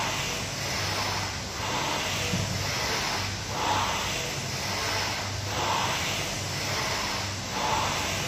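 Rowing machine whooshing in a steady rhythm, the sound swelling and falling about once every two seconds with each rowing stroke.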